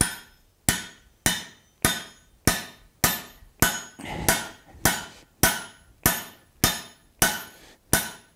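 Hand hammer blows on a half-inch mild steel drift, driving it through the punched hole in a red-hot tong half on the anvil: about fourteen evenly spaced strikes, a little under two a second, each with a short bright metallic ring.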